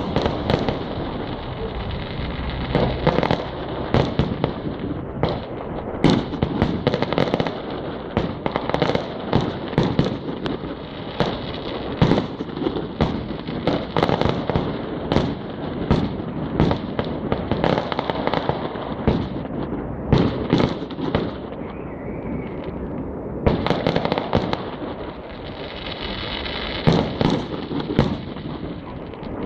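Fireworks display: a long, irregular run of sharp bangs and pops, several a second at times, over a constant hiss and rumble.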